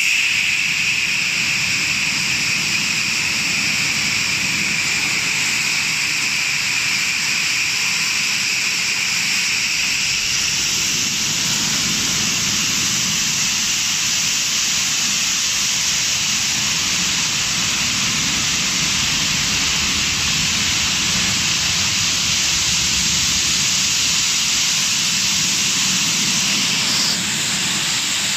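Golden Boat T12 touchless car wash machine blasting a car with high-pressure water jets: a loud, steady hiss of spray that dips slightly near the end.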